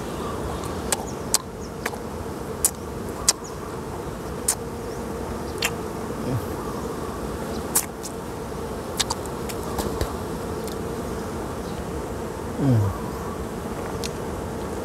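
Honeybees buzzing steadily around the comb, with scattered sharp clicks throughout. About three-quarters of the way through, one bee passes close and its buzz drops in pitch as it goes by.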